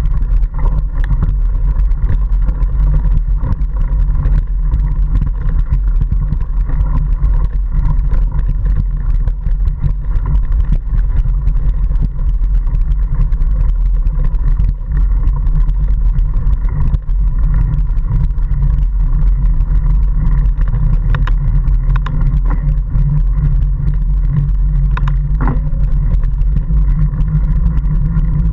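Mountain bike riding over a rough dirt track, heard through an action camera riding along: a steady low rumble of ride and wind noise, with occasional knocks and rattles from the bumps.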